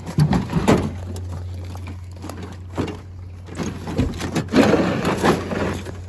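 Red metal toolbox being grabbed, shifted and set down on a pickup truck's bed liner: a string of irregular knocks and scrapes, over a steady low hum.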